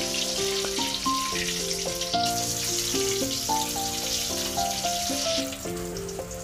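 Crumb-coated Bombay duck fish deep-frying in hot oil in an iron wok, a steady sizzle that dies away about five seconds in. Background music plays throughout.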